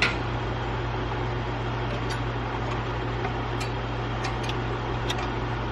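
A steady low hum and hiss, with a few faint clicks.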